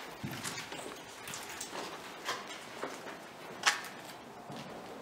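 Faint scattered clicks and scuffs, with one sharper click about three and a half seconds in and weaker ones a little before it.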